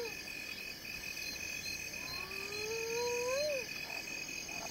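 Wildlife ambience: a steady high insect chirring with a faint pulsing trill, and about two seconds in one long whistling animal call that rises slowly, then falls away.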